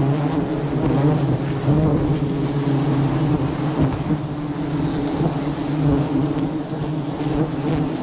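Steady buzzing of a swarm of wild honey bees around their exposed honeycomb, an even hum without pause.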